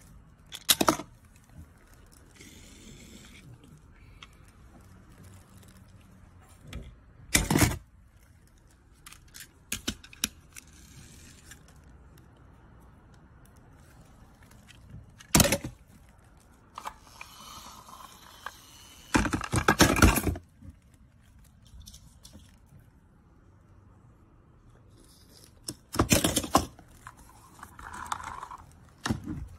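Plastic toy vehicles being handled and knocked against a hard surface and each other: sharp clicks and clatters every few seconds, loudest in a cluster about two-thirds through, with light rustling between. Near the end a brief whir as a toy helicopter's rotor spins.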